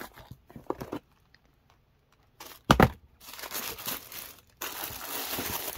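Plastic packaging and tissue paper crinkling as they are handled. There is a short loud crackle about two and a half seconds in, then steady crinkling through the second half.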